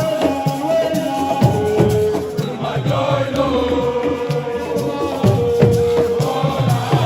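Music: chant-like singing with held notes over drums and shakers.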